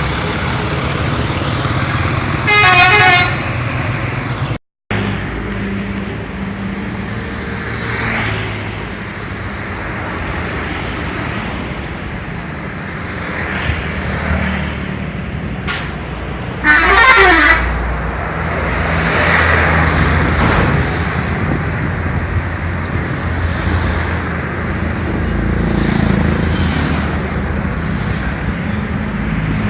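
Indonesian bus 'telolet' multi-tone horn sounding twice in short melodic blasts, about three seconds in and again around seventeen seconds in, over a steady rumble of bus engines and traffic.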